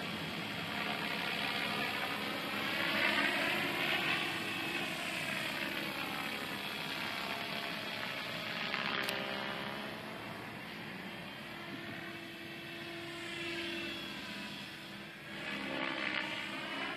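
MSH Protos 500 electric radio-controlled helicopter in flight: a steady motor and rotor whine whose pitch sweeps down and back up as it passes overhead and turns. It is loudest about three seconds in and again near the end, with a single sharp click about halfway through.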